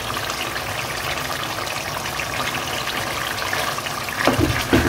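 Chicken karahi in tomato-and-oil gravy simmering in a karahi pan, a steady bubbling and sizzling crackle.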